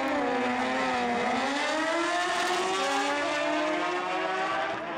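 Two Pro Street drag motorcycles launching off the line and accelerating hard. The engine note dips about a second in, then climbs in steps as they shift up through the gears.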